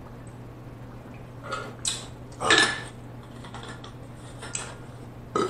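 A few short knocks and clicks as an insulated water bottle and its lid are handled after a drink, the loudest about halfway through, over a steady low hum.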